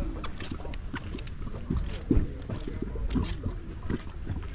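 A hydrothermal vent gurgling and bubbling: irregular low glugs over a steady low rumble.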